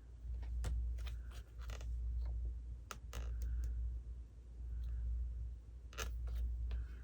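Scissors snipping through paper in a series of short, uneven cuts, bunched in three small runs, over a low rumble.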